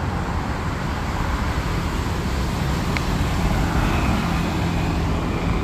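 Road traffic: a steady low engine rumble under an even haze of road noise.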